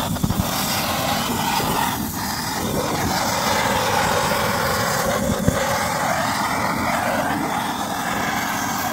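Gas blowtorch burning steadily with a constant rushing hiss as its flame sears beef skewers on a grill, with a few brief knocks near the start and one about halfway through.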